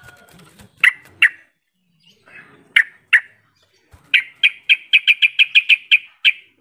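Yellow-vented bulbul (trucukan) calling: two pairs of sharp chirps, then a fast run of about a dozen chirps, some five a second, near the end.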